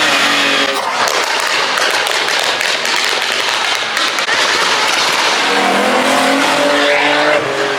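A car engine revving hard under a loud, rough rushing and crackling noise, its pitch climbing again near the end.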